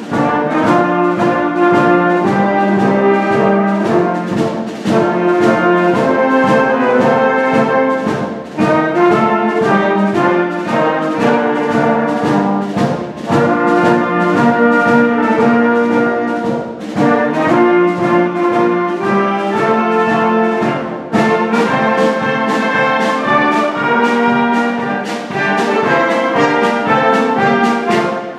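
A wind band playing a piece: trumpets, clarinets, saxophones and low brass in full ensemble over a steady drum beat.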